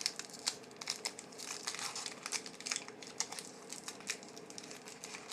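Thin plastic crinkling and light clicks as trading cards and their packaging are handled: a quiet, irregular crackle.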